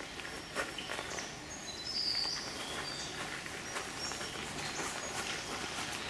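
Birds calling with a few short, high chirps, the clearest about two seconds in, over the footsteps of a group walking a forest trail.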